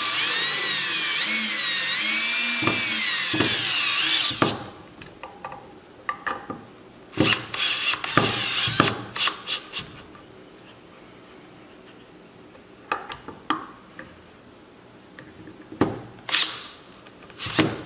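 Cordless drill running into a wooden 2x4, its motor whine wavering in pitch with load, then stopping about four seconds in. Scattered clicks and knocks of tool and wood handling follow, with two sharper knocks near the end.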